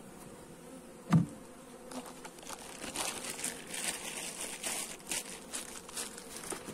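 Honeybees buzzing around an open hive, with a sharp knock about a second in, then a plastic bag crinkling for several seconds as the honey-smeared uncapping fork is put into it.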